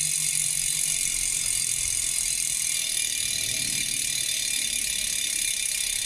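Rear road-bike wheel (Vision Team 35 alloy) spinning freely by hand, its freehub pawls ratcheting in a steady high buzz.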